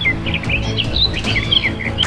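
A small bird chirping, a rapid string of short high notes, over background music.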